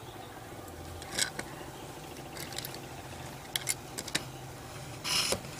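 Hands handling a 1:64 diecast model van and its small loose parts, making a scatter of light clicks and taps spread through, then a short rasping rub about five seconds in, over a low steady hum.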